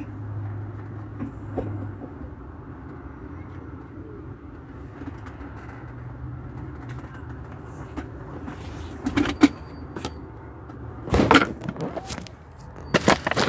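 Steady low rumble of a car heard from inside the cabin. From about nine seconds in, a series of sharp knocks and clicks of the phone being handled breaks in, loudest near the end.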